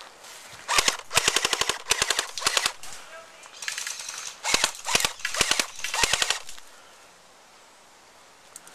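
Airsoft rifle firing on full auto: about seven short bursts of rapid, even clicks over some six seconds, then it stops.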